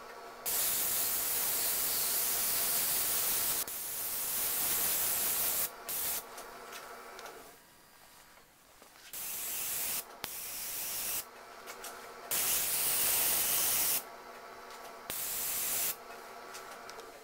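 Airbrush spraying paint in a series of hissing bursts, each a second or two long, over the steady hum of a wood lathe. The lathe hum drops out about midway and returns a second or so later.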